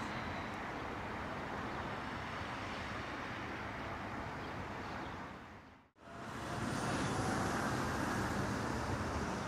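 Steady road traffic noise from cars on a city street. It fades out about six seconds in and comes back as a similar, slightly louder steady outdoor rumble with a faint high whine.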